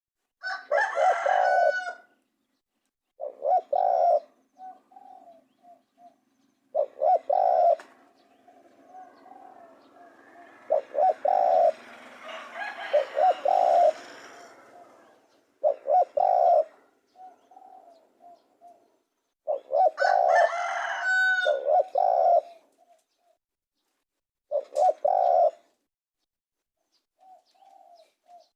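Spotted dove cooing in short repeated phrases a few seconds apart. Louder, higher calls, possibly a rooster, cut in near the start and about two-thirds through, and a rushing noise swells and fades in the middle.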